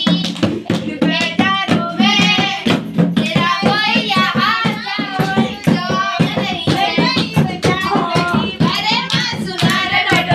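A song playing, with a singing voice over a quick, sharp beat.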